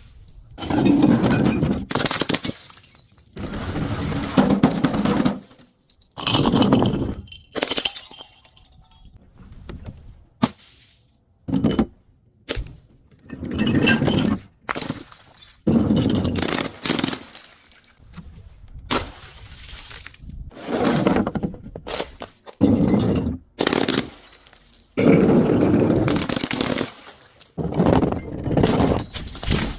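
Repeated crushing and breaking of brittle objects: loud crunching and cracking bursts, each a second or two long, one after another with short pauses between.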